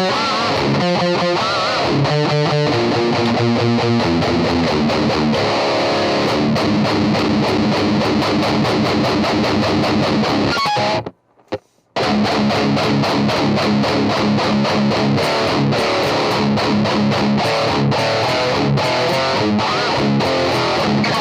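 ESP LTD M1000H-T electric guitar played through a 5150 amp head with heavy distortion: fast metal riffing, with bent notes in the first few seconds. It stops dead for about a second midway, then the riffing resumes.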